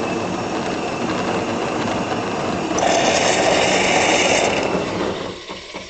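Jura X9 super-automatic espresso machine's pump and steam system running steadily as it heats and dispenses milk through its hoses. About three seconds in, a louder steam hiss lasts under two seconds, then the sound drops away near the end.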